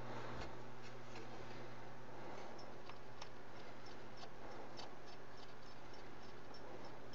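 Cotton swab wet with isopropyl alcohol rubbing over a VCR's video head drum, giving faint, irregular small ticks, a few a second, from about two and a half seconds in. A steady low hum runs underneath.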